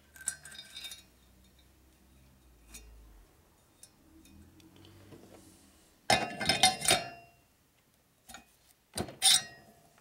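Metal shovelhead rocker-box parts clinking and clattering as they are handled: a few light clinks at first, then a loud burst of rattling clatter about six seconds in and another sharp clatter near the end.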